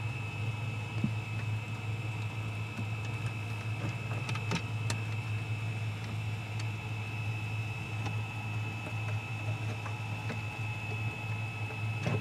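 Heater running with a steady low hum and a thin, steady high whine, with a few light clicks and knocks as the unit is pressed into place against the wall.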